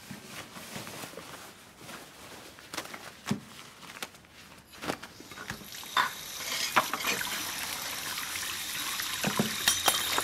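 Scattered light knocks and clicks of kitchen cleaning, then, about five and a half seconds in, a kitchen tap starts running into the sink. The water runs steadily and grows louder, with knocks of things being washed.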